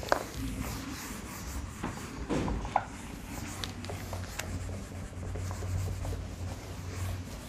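Handheld eraser wiping a whiteboard: repeated rubbing strokes across the board's surface, with a couple of brief clicks.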